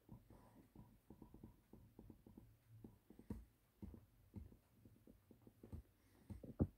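Faint, irregular low thumps and knocks in a quiet room, with one sharper, louder knock near the end.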